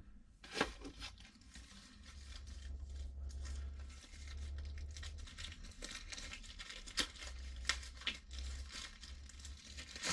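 Drone packaging being unwrapped by hand: many small crackles of wrapping being handled and pulled apart.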